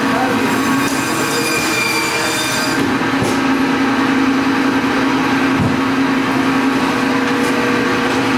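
Meat band saw running with a steady hum while a slab of bone-in beef is pushed through its blade.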